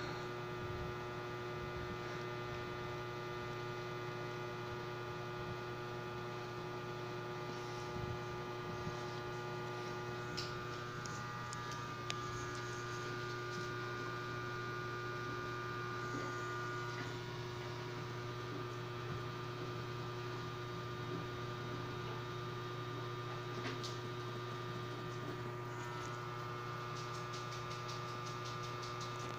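Steady electrical mains hum with several steady tones, unchanging throughout, with a few faint clicks scattered through it.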